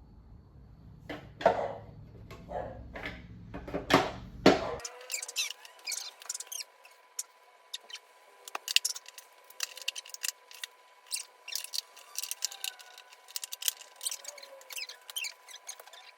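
Rapid clicking, rattling and small squeaks of vacuum-cleaner parts being worked by hand, testing whether freshly applied oil has loosened a stuck part; a few louder knocks come in the first few seconds.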